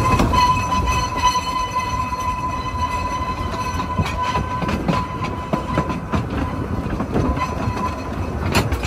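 Narrow-gauge train carriage rolling over jointed track, with irregular knocks from the rail joints over a low rumble. A steady high-pitched squeal, the wheel flanges grinding on the curve, runs through most of it and fades out near the end.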